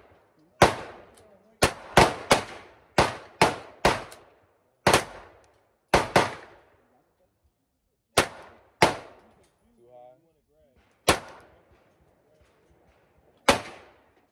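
Semi-automatic gunfire from a handgun and a rifle: about fourteen sharp shots, irregularly spaced. A quick run of shots comes in the first half, then single shots and pairs follow with gaps of up to a couple of seconds.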